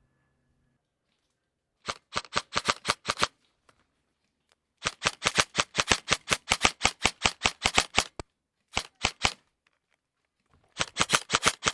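Airsoft gun firing quick strings of shots, about seven or eight sharp cracks a second, in four bursts separated by short pauses; the longest burst lasts about three seconds.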